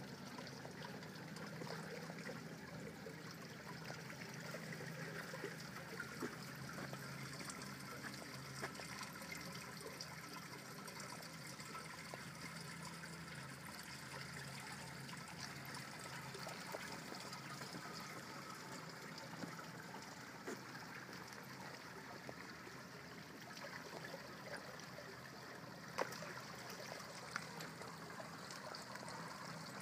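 Swimming pool water trickling steadily, with a few faint clicks here and there.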